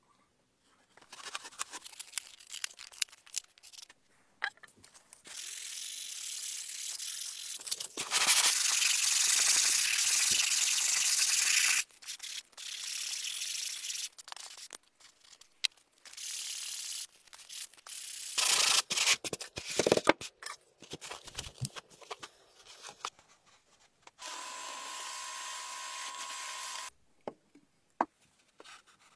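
Rubbing, brushing and pouring noises from hands working green powder over a mask pattern, in several separate stretches of hiss a few seconds long, the loudest about a third of the way in. Near the end comes a steady hiss with a thin hum for about three seconds.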